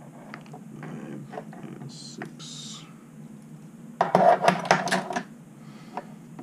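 Small metal lock parts and hand tools clicking and clinking as they are handled on a wooden table, with a loud metallic clatter lasting about a second just past the middle.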